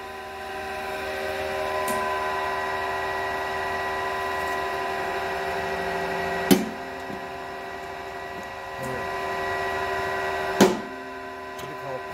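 Metalworking press punching slots in a steel plate: the machine runs with a steady hum. Two sharp bangs about four seconds apart are the punch cutting through the plate.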